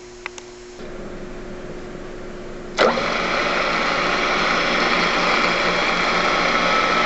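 Drill press switched on with a 1/4-inch bit, starting about a second in after a couple of small clicks. From about three seconds in a much louder, steady running noise takes over.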